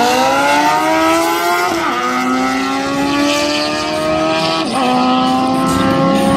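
Two drag-racing sport bikes, one a Suzuki GSX-R, accelerating hard down the strip. The engine note climbs, drops sharply at an upshift about two seconds in and at another near five seconds in, then climbs again.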